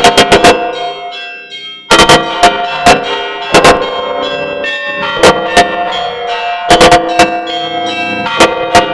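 Orthodox church bells rung in a peal: clusters of sharp strikes on the smaller bells over the lingering ring of the larger ones. After a brief lull about a second in, the strikes resume and go on in irregular groups.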